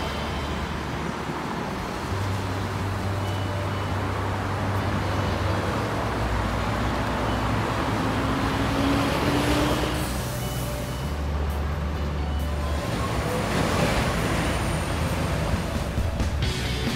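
City road traffic, with cars and a bus going by; the noise swells twice as vehicles pass, about ten and fourteen seconds in. Background music with low held bass notes runs underneath.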